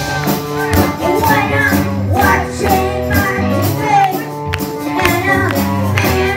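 Children's rock band playing live: a child's singing voice over electric guitars, keyboard and a steady drum beat.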